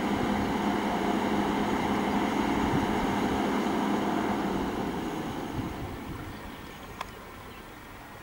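Nissan Diesel concrete mixer truck's diesel engine running steadily, then dropping away to a much quieter level from about five seconds in. A single sharp click sounds near the end.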